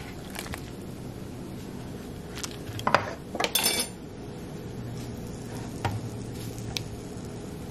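Metal cookware and utensils clinking and scraping against a pot, with a ringing clatter about three seconds in. Near the end come lighter taps as a kitchen knife is pushed into boiled potatoes to test whether they are soft enough to mash.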